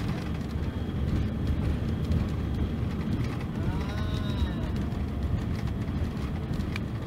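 Mercedes-Benz OC-500RF-1842 coach's rear-mounted inline-six diesel running steadily with a deep rumble. A brief high tone rises and falls about four seconds in.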